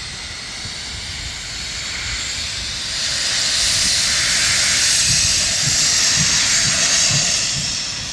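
Class 52 two-cylinder 2-10-0 steam locomotive moving slowly with its cylinder drain cocks open: a loud steady hiss of steam that swells about three seconds in. A low beat about twice a second runs under the hiss in the later part.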